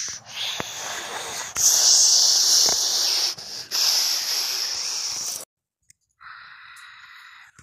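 Cartoon sound effect: a loud, hissing rush of wind-like noise that comes in several surges with short breaks and cuts off suddenly about five and a half seconds in. Near the end a fainter, thinner hiss follows.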